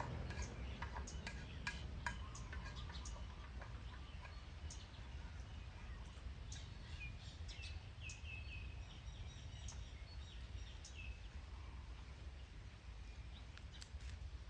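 Faint scattered clicks and smacks of puppies and a dog eating from a plastic tray and a bowl, with a bird calling in a quick run of short notes about seven seconds in.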